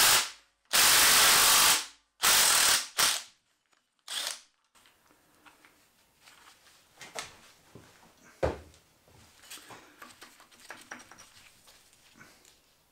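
Short, loud bursts from a compressed-air tool, four of them in the first few seconds, while fasteners are taken off a 1.9 diesel engine during teardown. Then quiet clicks and clinks of tools and parts, with one sharp knock about halfway through.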